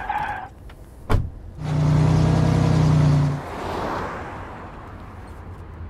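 Small Toyota hatchback's engine running as it drives up and slows: a sharp knock about a second in, then a steady engine note for about two seconds, then a fading hiss of tyres on the road.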